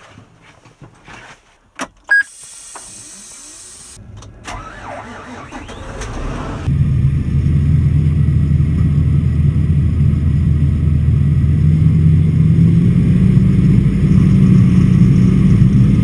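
Large diesel tractor engine being started: a few clicks, then cranking for about two seconds before it catches, about six and a half seconds in, and runs steadily, with its speed slowly rising near the end.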